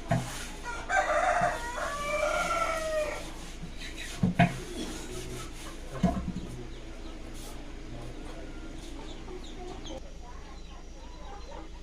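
A rooster crowing once, a drawn-out call of about two seconds starting about a second in, followed by a few sharp knocks.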